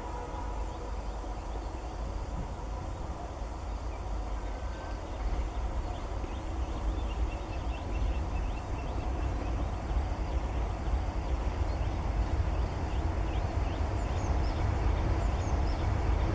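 Outdoor trackside ambience: a steady low rumble with birds chirping in short quick calls through the middle. The rumble grows gradually louder toward the end.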